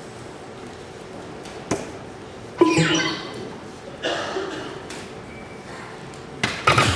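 Darts striking a soft-tip electronic dartboard, two throws a few seconds apart, among several short sharp knocks with a brief ring after some of them, in a large reverberant hall.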